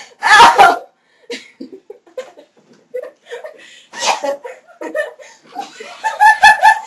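Two people laughing hard. There is a loud outburst at the start, another about four seconds in, and a quick run of four short 'ha-ha-ha' laughs near the end.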